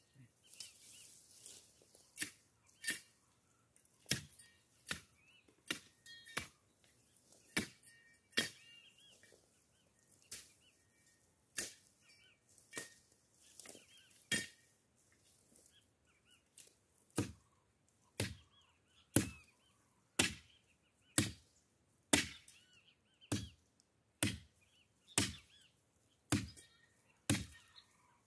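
Machete chopping into woody brush, one sharp strike after another. The strikes are irregular and softer at first, then from about seventeen seconds in come steadily at about one a second.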